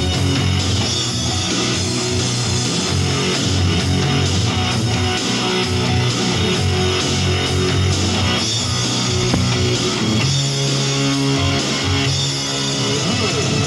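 Rock music with distorted electric guitar, played loud and steady.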